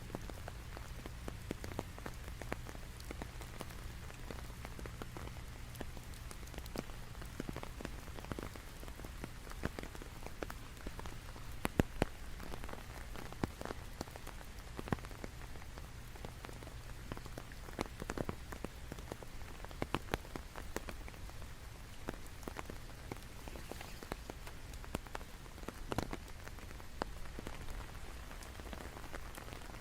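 Steady rain falling, with irregular sharper taps of individual drops landing close by. A low steady hum runs underneath and fades about halfway.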